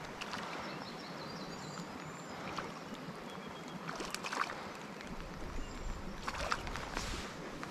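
Small mountain brook running steadily, with a few faint high chirps over it and a couple of brief louder noises, one around the middle and one near the end.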